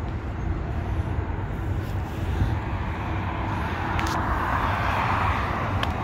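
Road traffic noise with a steady low rumble, and one vehicle passing that swells louder about four to five seconds in.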